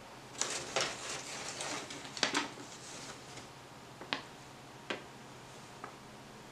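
Paper and cardboard rustling as crumpled newspaper packing and a folded note are handled in a cardboard box: a burst of rustling for about two seconds, then three single sharp paper crackles.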